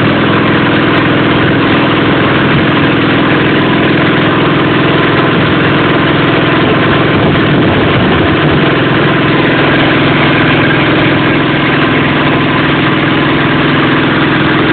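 Small engine running at a steady speed on a hydrostatic dynamometer, a constant even drone with no change in pitch.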